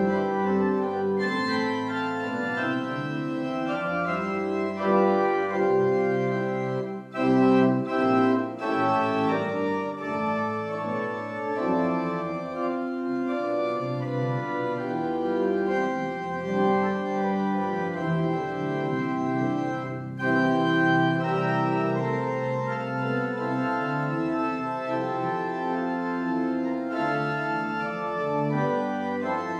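Pipe organ playing full, sustained chords that move from one to the next, with a short break about seven seconds in.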